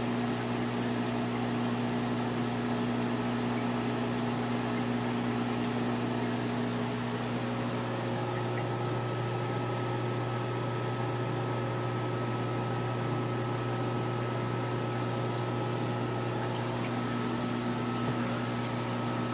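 Aquarium air pump humming steadily while air stones bubble in the tank.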